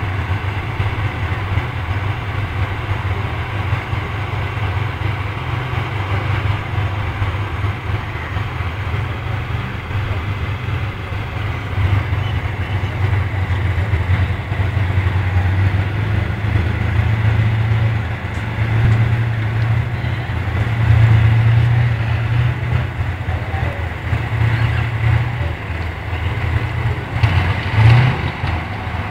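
Battle tanks' diesel engines running as the tanks move about: a steady low drone that swells louder several times and peaks briefly near the end.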